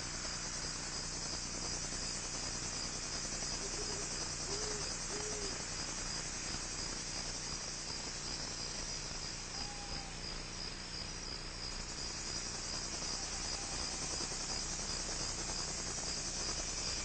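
Crickets chirping, a steady high pulsing trill that holds throughout. Three faint short calls sound low beneath it about four to five seconds in, and another near the middle.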